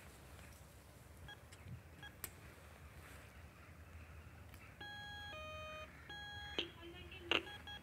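Door intercom panel: a few faint keypad beeps, then, about five seconds in, its electronic call signal rings as it calls a flat. The signal is a steady higher tone, a lower tone, then the higher tone again, lasting under two seconds.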